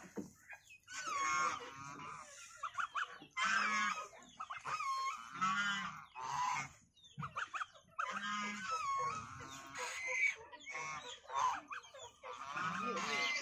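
White domestic goose honking repeatedly, short calls a second or so apart with a brief lull about seven seconds in.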